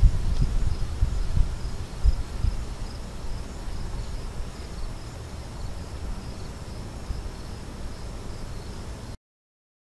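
A faint, steadily pulsing high-pitched insect trill, like crickets, with a low rumble on the microphone that is heavier in the first few seconds. The sound cuts off abruptly near the end.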